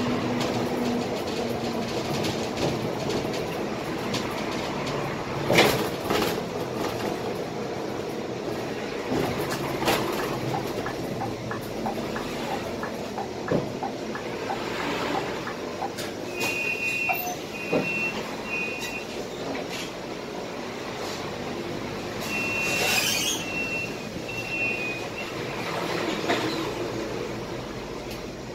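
Cabin noise of a Scania K320 IA articulated city bus under way: steady engine and road noise with rattles and a loud knock about five seconds in. Twice in the second half, a run of short high-pitched beeps sounds, the second time with a brief hiss.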